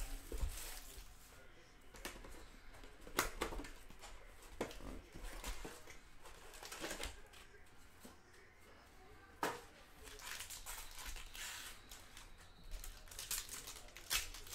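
Panini Chronicles basketball fat packs being ripped open by hand: wrappers tearing and crinkling as the cards are handled, with several sharp snaps a couple of seconds apart.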